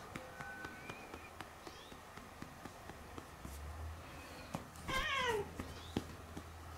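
A cat meows once about five seconds in, a short call falling in pitch, over a run of light pats about four a second from a hand tapping a cat's rump.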